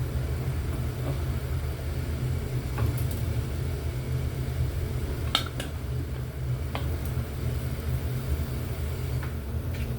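Steady low rumble of a gas stove burner turned up high under a pot of steaming chicken and onions, with a few light clinks of cookware, the sharpest about five seconds in.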